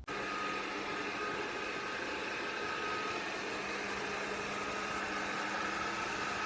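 A Yeedi M12 PRO+ robot vacuum system's suction motor switches on abruptly and runs at full power. It makes a loud, steady whooshing rush with a low hum and a thin whine.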